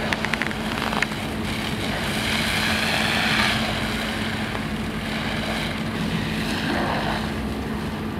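Steady engine drone with a constant hum, typical of a fire engine's pump running to feed the hose lines, under the hiss of a hose stream spraying water.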